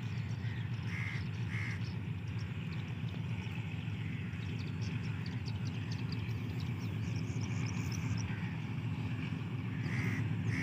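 Distant diesel locomotive approaching at the head of a coal train, a steady low engine rumble that grows slightly louder. Crows caw twice about a second in and twice more near the end, with faint small-bird chirps in between.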